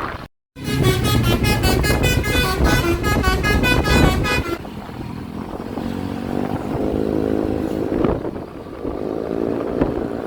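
Bus telolet basuri musical horn playing a fast, loud tune of quickly changing notes for about four seconds, over engine rumble. After it stops, vehicle engine and road noise continue, with an engine's pitch rising and falling.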